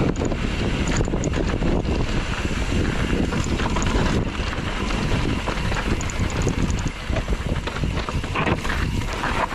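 Wind buffeting the microphone of a camera on a moving mountain biker, over the rattle and crunch of the bike and its tyres on a rough trail.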